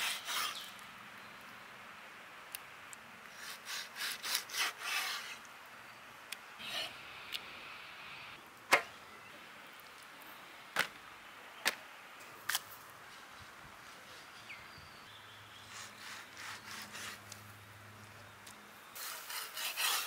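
Knife cutting a raw fish fillet into strips on a wooden log chopping block: runs of quick scraping strokes through the flesh, with a few sharp single knocks of the blade on the wood in between.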